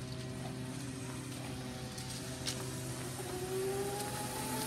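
Small child's mini dirt bike riding along, its motor a steady hum with a whine that glides up in pitch about three seconds in and eases off near the end.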